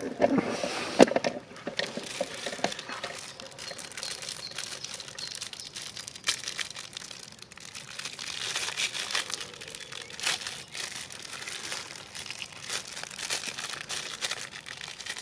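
Military ration packaging crinkling and rustling in the hands as the packets are handled and opened, with many small irregular clicks and crackles.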